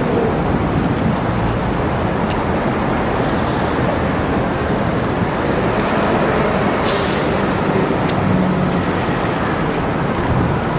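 Steady roar of downtown street traffic, with a brief hiss about seven seconds in.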